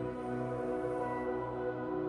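Background music: a slow ambient instrumental of sustained, held notes.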